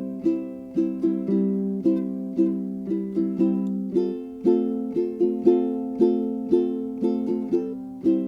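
Background music: a plucked string instrument playing a light, even tune, about two notes or chords a second.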